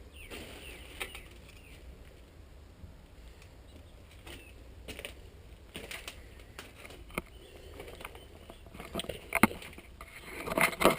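Footsteps and scattered knocks and crunches on a debris-strewn floor. The noises are sparse at first and grow busier and louder near the end.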